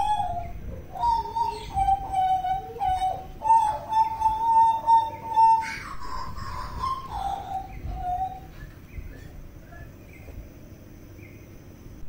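A butcherbird (jagal papua) singing clear, flute-like whistled notes, some held for a second or more and some in short phrases, with the song thinning to fainter notes for the last few seconds. A steady low rush sits underneath.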